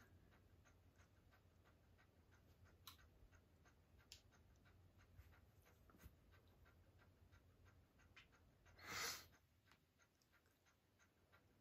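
Near silence: room tone with faint, fairly regular ticking a few times a second, and a brief soft hiss about nine seconds in.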